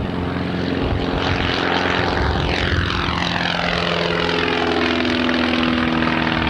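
Citabria light taildragger's propeller and piston engine at high power, passing by with its pitch falling in the second half.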